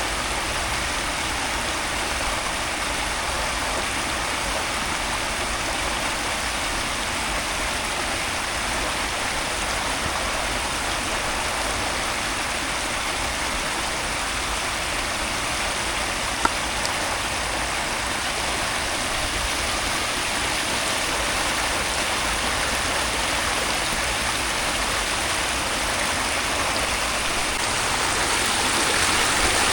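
Steady hiss of heavy rain and running water, swelling louder near the end, with a single sharp tick about halfway through.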